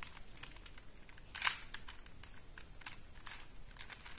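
Plastic clicks and ticks of a QJ Super Square-1 twisty puzzle being turned by hand: light ticks, with one sharper click about a second and a half in.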